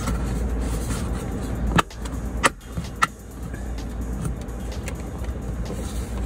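Plastic trim cover around a BMW's rear-view mirror base and rain/light sensor snapping into place: three sharp clicks a couple of seconds in, over a steady low hum.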